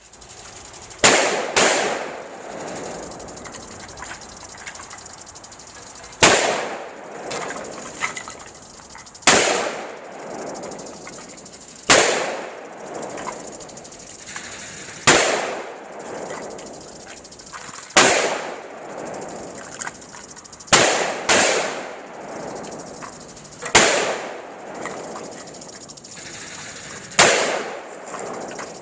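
AR-15 rifle firing single shots at an irregular pace, about eleven in all, a few seconds apart with two quick doubles, each shot followed by a trailing echo.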